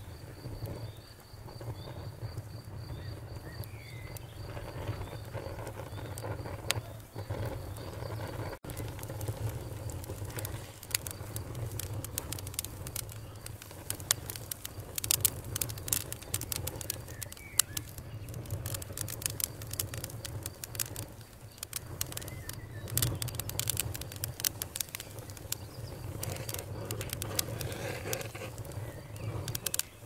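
Wood fire burning in a fireplace: logs crackling and popping over a steady low rumble of the flames. The pops come thickest in the middle stretch, and there is a brief dropout about nine seconds in.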